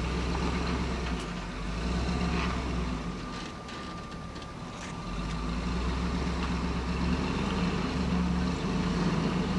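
Hummer H2's V8 engine running at low revs as the truck crawls over slickrock ledges, the engine note falling away briefly about halfway through before picking up again.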